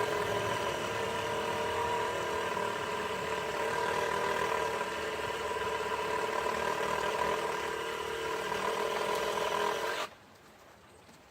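Reciprocating saw (Sawzall) motor running steadily with a whine, stopping abruptly about ten seconds in.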